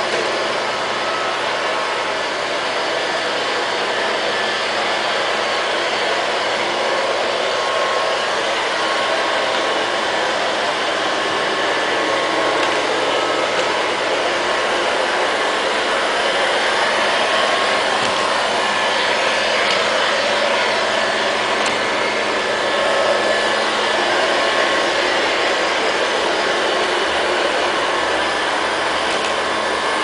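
Liectroux LL-302 robot vacuum cleaner running on a tiled floor: a steady whirring of its suction fan and brushes as it drives about.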